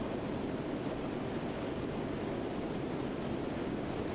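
Steady rushing cabin noise of a C-130 Hercules in flight, from its four turboprop engines and the airflow past the fuselage.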